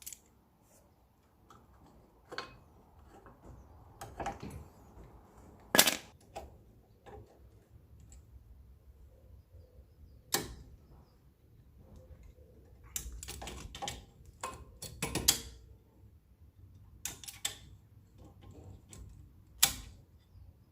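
Sharp metallic clicks and clanks, coming irregularly, from a clamp and old brake pads being worked against a four-piston brake caliper as its pistons are pushed back in.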